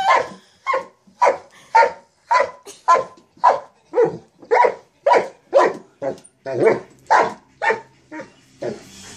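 Mastiff barking over and over while playing with a jack-in-the-box toy, about two barks a second. The barks grow shorter and softer near the end.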